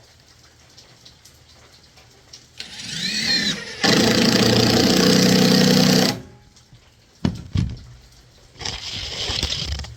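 Power drill driving screws through a strap into the wooden frame to clamp a barrel down: the motor winds up briefly, runs steadily for about two seconds, then runs again near the end, with a couple of knocks in between.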